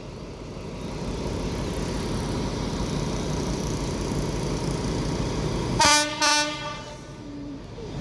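Diesel locomotive and passenger train running with a steady rumble, then the locomotive's horn sounding two short blasts near the end.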